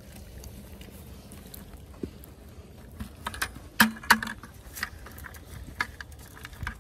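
Crawfish being shaken out of a net into a plastic bucket: a run of sharp clicks and rattles starting about three seconds in, the loudest two close together about four seconds in.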